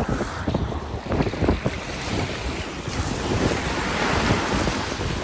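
Wind buffeting the microphone with a low rumble, over ocean surf. A wave's wash swells to a hiss about four seconds in.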